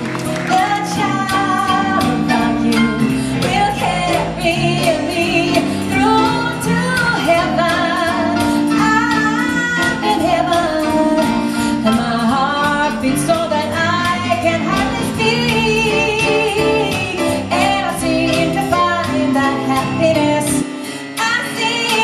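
Live jazz: a female vocalist singing into a microphone over a trio of keyboard, upright double bass and drums. The lowest bass drops out near the end.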